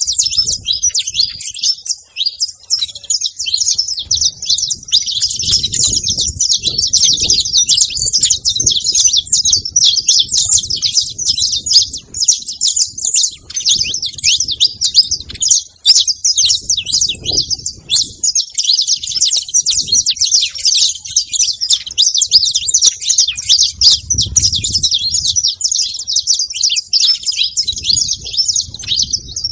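A flock of saffron finches chirping and calling all at once in a dense, continuous high chatter.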